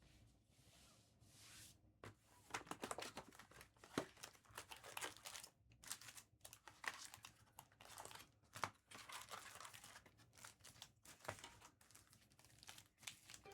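Foil wrappers of Panini Optic basketball card packs being torn open and crinkled by hand. The crackling comes in irregular bursts, starting about two seconds in.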